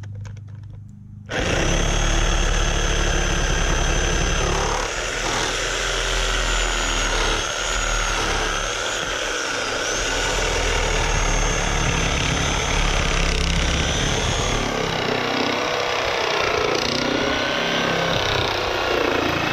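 Chicago Electric corded reciprocating saw starting about a second in and cutting through a wooden board, the motor's whine wavering up and down in pitch as the blade works, the low rumble easing after about fifteen seconds.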